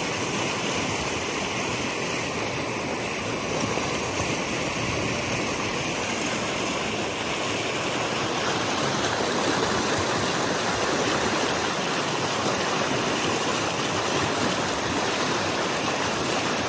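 Shallow, fast creek rushing over rocks through a riffle, a steady, unbroken rushing of water.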